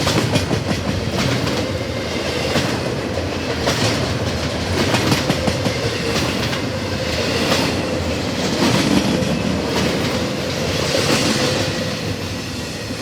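Intermodal freight train cars rolling past, wheels clacking over the rail joints about once a second over a steady rumble, with a faint steady whine from the wheels. The sound eases off near the end as the train moves on.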